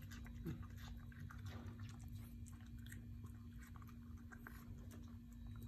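Small dog chewing food picked off the carpet: faint, irregular clicks and crunches of its teeth, over a steady low hum.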